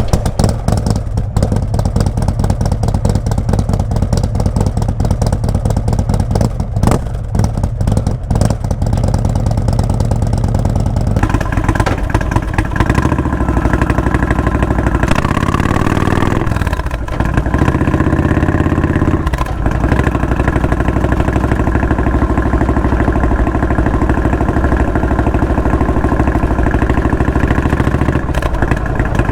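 Indian Springfield motorcycle's V-twin running through an aftermarket Freedom Performance exhaust, mostly at a steady idle. Its note changes about eleven seconds in, and a little past halfway the engine speed dips and climbs back twice.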